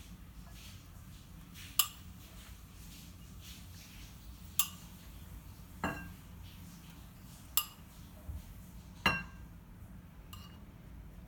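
Kitchenware being handled: about six sharp clinks and knocks of utensils against dishes or pans, spaced a second or more apart, some ringing briefly.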